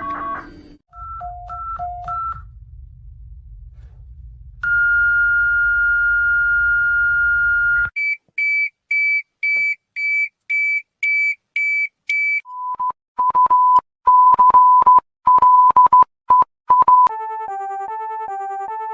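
A run of synthesized emergency-alert tones: three short two-note beeps over a low hum, a steady high tone held about three seconds, about nine evenly spaced higher beeps at roughly two a second, a stretch of rapid irregular beeps, then a repeating stepped pattern of tones near the end.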